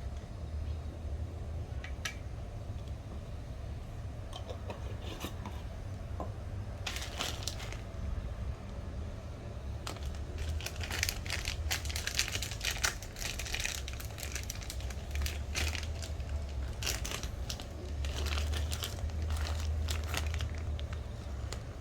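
Crinkling and rustling, as of packaging or foil being handled, in irregular bursts that become dense after about ten seconds, over a steady low rumble.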